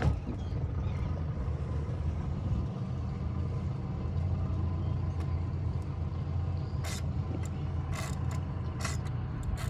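A boat's motor running steadily at a low, even hum, with a few sharp clicks or knocks in the last few seconds.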